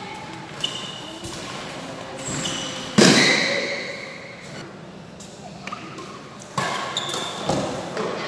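Badminton rally on an indoor court: sharp racket hits on the shuttlecock, the loudest about three seconds in, with short high squeaks of shoes on the court mat and a few calls from the players, echoing in the large hall.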